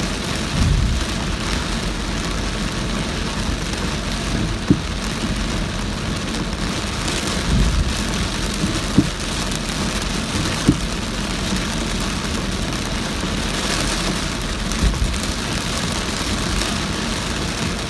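Heavy rain pelting a moving car, a steady dense hiss mixed with the car's road noise, with a few brief low knocks scattered through it.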